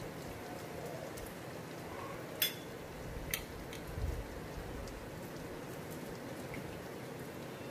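A steady hiss in the background, with two sharp clicks about two and a half and three and a half seconds in as small bowls are picked up and set down on the kitchen counter.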